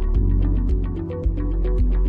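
Background music with a steady quick beat, deep bass and a stepping melody.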